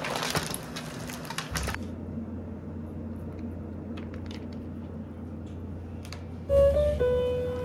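Aluminium foil crinkling as it is pulled open, for about the first second and a half. After that a low steady hum with a few faint clicks, and then music with held tones starts loudly about six and a half seconds in.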